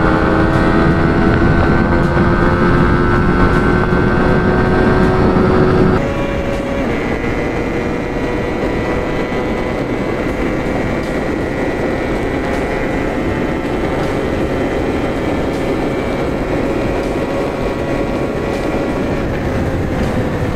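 Yamaha R15 V4 motorcycle's single-cylinder engine running at steady cruising speed, with road and wind noise. The engine note creeps up in pitch, then changes abruptly about six seconds in and gets a little quieter, holding steady after that.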